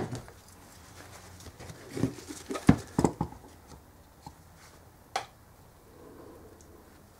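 Metal clunks and knocks as a steel engine cradle is fitted against a motorcycle engine. There is a thump at the start, a cluster of sharp knocks about two to three seconds in, and a single click about five seconds in.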